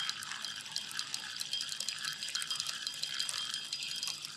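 Lake water lapping and trickling, a steady splashy hiss with many small drip-like clicks.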